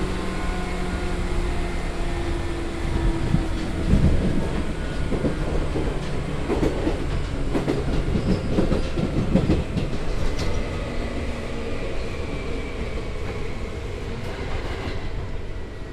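Seibu 2000 series electric train running, with its field-chopper-controlled traction motors giving steady whining tones over the rumble of the wheels. In the middle the wheels clack over rail joints, and in the last few seconds a high motor tone falls gently.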